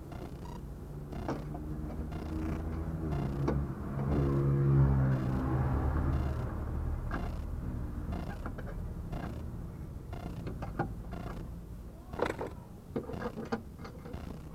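2008 Ford Mondeo Mk4 driving slowly, its engine note swelling about four seconds in, with scattered sharp knocks and creaks from the front suspension over speed bumps, the strongest cluster about twelve seconds in. The clunking is the unexplained front suspension noise under investigation.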